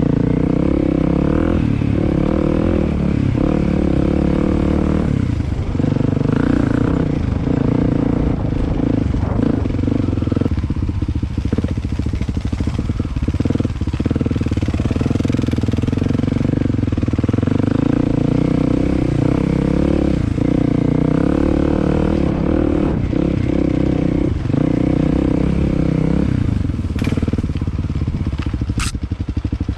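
Dirt bike engine running under way, its pitch rising and falling with the throttle, with rattling over rough ground. A couple of brief sharp sounds near the end.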